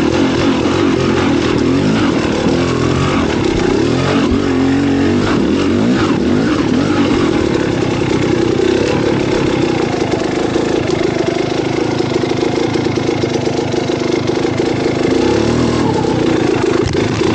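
Vehicle engine running under way, its revs rising and falling in the first few seconds and then holding steadier, with a continuous rush of wind and road noise.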